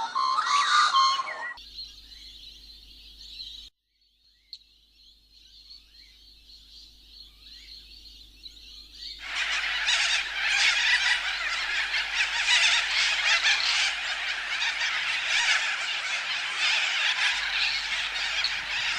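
A sequence of nature sounds: loud honking bird calls at the start, then a faint steady high buzz with a few scattered chirps, then from about nine seconds a dense, loud chorus of animal calls.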